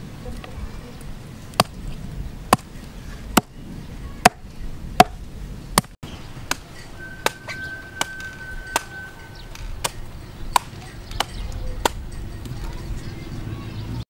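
A knife chopping into sugar palm fruits: about fifteen sharp, separate strikes, roughly one every second or less, unevenly spaced.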